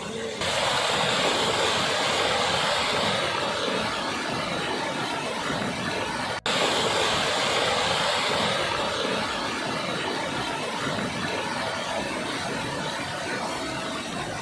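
Muddy floodwater of a rain-swollen hill stream rushing over rocks, a loud steady rush of water with a brief break about halfway through.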